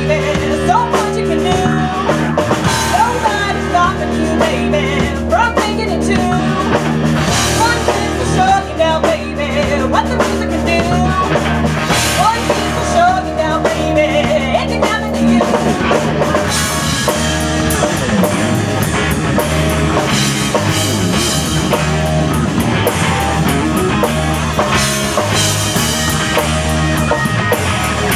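Rock band playing live through a PA system in an instrumental section: drum kit, bass guitar and electric guitar, with bending lead guitar lines in the first half and a change in the playing about halfway through.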